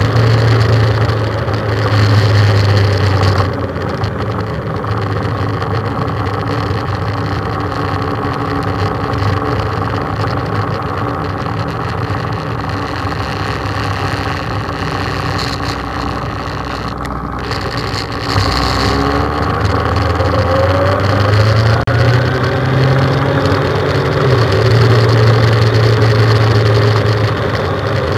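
Motorcycle engine running on the move, heard from the bike itself with wind rush. It eases off about three seconds in, runs quieter for a while, then picks up again past halfway, rising in pitch as it accelerates.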